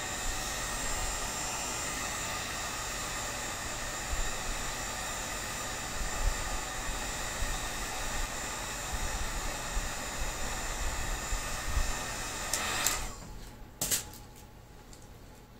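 Electric heat gun running steadily, blowing hot air onto PVC pipe to soften it. It cuts off about 13 seconds in, followed by a short knock.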